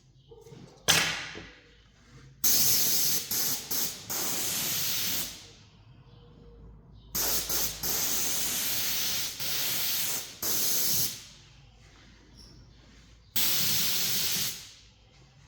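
Spray hissing in three long, steady bursts of a few seconds each, with brief gaps within them, after a short sharp hiss about a second in.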